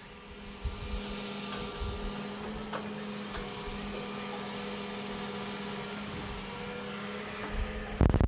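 Excavator's engine running steadily with a low hum, with a few dull thumps in the first couple of seconds as dirt is put down. A brief louder burst comes near the end.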